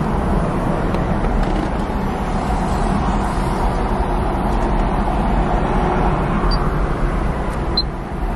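Pickup truck idling, heard from inside the cab as a steady low rumble and hiss, with two faint short high beeps near the end.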